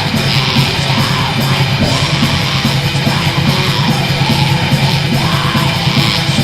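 Black metal music: a dense, loud band recording with harsh yelled vocals over it.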